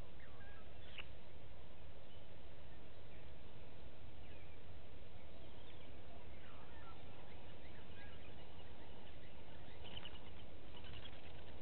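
Steady low outdoor rumble with faint, scattered short bird calls, and a small cluster of calls near the end.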